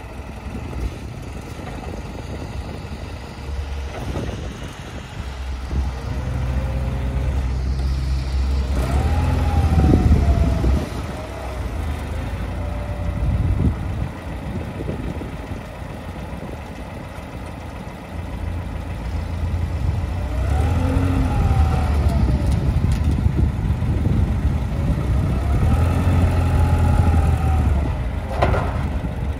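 Caterpillar TC60SA propane forklift's engine idling and being revved up several times as the forklift is worked, with a whine that rises and falls in pitch along with the revs.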